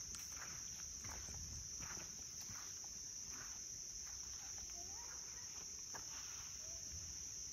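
A steady high-pitched chorus of insects trilling without a break, with soft footsteps on the trail about twice a second.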